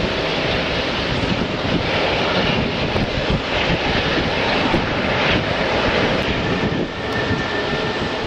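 Jet engines of an Airbus A380 running at taxi power: a steady, even rush of engine noise, with a faint whine coming in about six seconds in. Wind buffets the microphone throughout.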